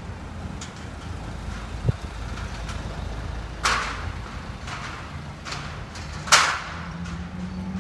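Steel scaffolding being assembled: a few sharp metallic clanks of tubes or fittings being knocked into place, the two loudest about two and a half seconds apart, over a steady rumble of street traffic.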